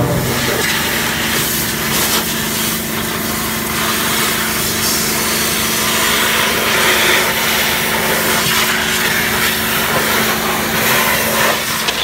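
High-pressure washer jet blasting mud off an off-road vehicle's wheel and wheel arch: a steady, loud hiss of spray over a steady hum.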